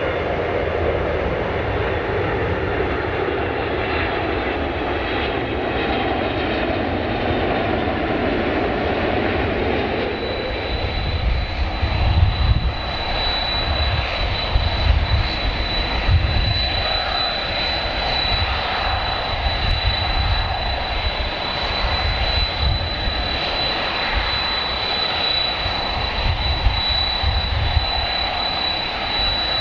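Jet airliner engines running, a continuous broad noise with a deep rumble. A steady high whine joins about ten seconds in and holds.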